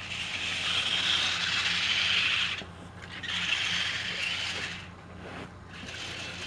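Three bursts of hissing noise, the first about two and a half seconds long and the other two shorter, over a faint steady hum.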